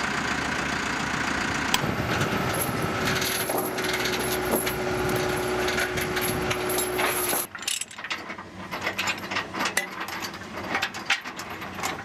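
A heavy equipment engine running steadily, with a steady hum tone joining about three seconds in. About seven seconds in it cuts off, leaving the clinking and rattling of steel tie-down chains and a ratchet chain binder being worked.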